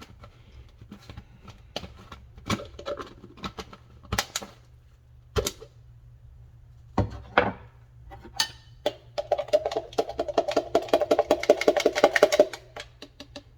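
Utensils knocking against a bowl of cut fruit as dressing is added, with scattered single clinks, then about three seconds of fast, continuous clinking and scraping near the end as the fruit salad is stirred.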